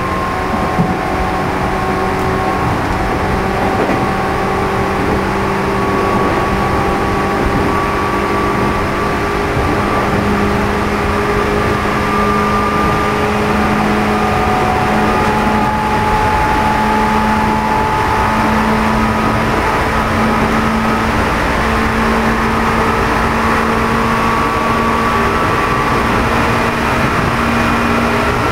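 Running noise aboard a JR East 211-series electric train's motor car, MoHa 211-1, whose traction motors have an externally mounted cooling fan. The motor whine climbs slowly in pitch as the train gathers speed, over a steady rumble of wheels on rail.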